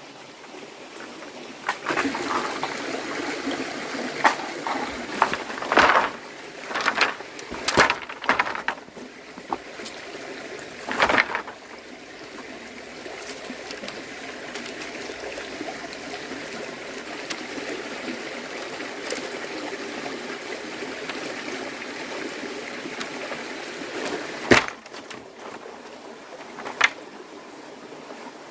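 Running water, starting about two seconds in and stopping abruptly with a knock near the end, with several sharp knocks and clatters of things being handled in its first half.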